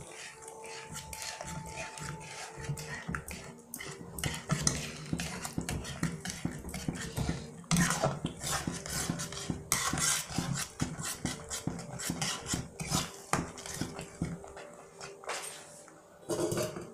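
Flat steel spatula scraping and knocking against an aluminium kadai while thick masala gravy with milk is stirred: irregular scrapes and clacks, loudest around 8 and 10 seconds in.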